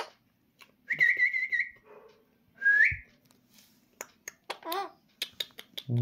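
Two short whistles: a wavering one about a second in, and a quick rising one near three seconds, followed by a few soft clicks and a brief chirp.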